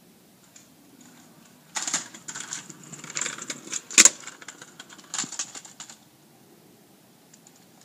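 Fast-motion audio of a kick scooter's small hard wheels rattling over brick paving: a rapid clattering run that starts about two seconds in and stops about six seconds in. A single loud clack comes about halfway through.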